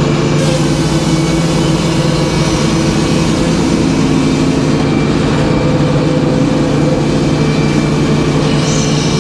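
Circular sawmill running steadily as its big blade saws a poplar log: a loud, even hum with a hiss of cutting from about half a second in.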